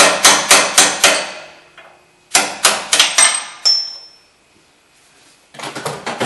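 Hammer striking a punch to drive the bolt out of a 2000 Mercury Grand Marquis' upper ball joint at the steering spindle: sharp metal-on-metal blows at about four a second, a run at the start and another about two seconds in that ends in a brief high ringing. Lighter metallic clatter follows near the end.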